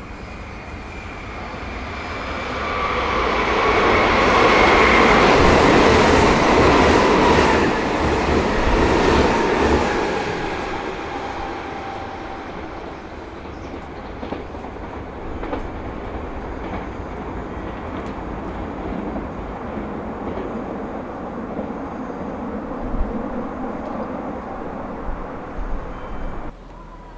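Meitetsu electric train on the rails: wheel-and-rail noise swells to a loud peak a few seconds in, with a whine that falls in pitch, then eases to a lower steady rumble with scattered wheel clicks until it drops off abruptly near the end.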